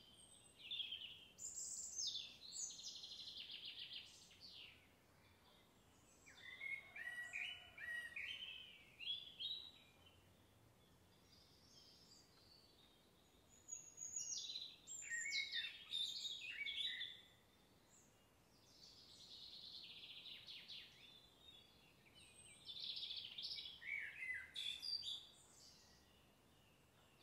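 Songbirds singing in short phrases of high chirps and trills, about five bursts a few seconds apart with pauses between, over faint outdoor background noise.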